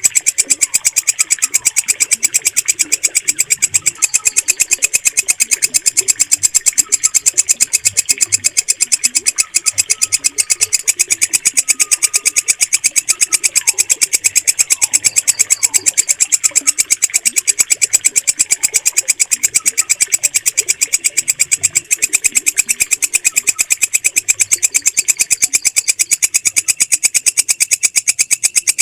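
Walang kecek bush cricket singing: a steady, rapid train of evenly spaced, shrill clicking chirps.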